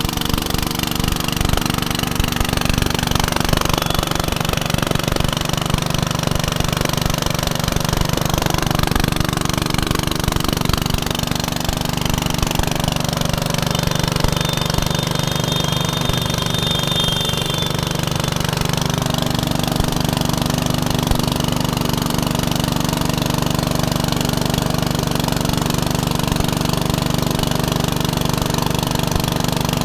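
Corn grinding machine running steadily under load, with a fast, even knocking rhythm over a constant low drone.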